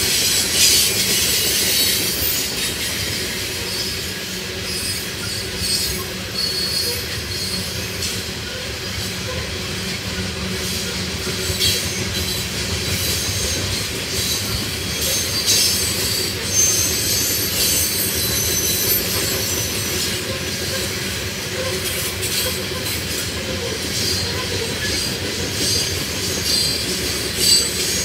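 Coal hopper cars of a freight train rolling past: steel wheels rumbling and clacking on the rails, with a high wheel squeal now and then.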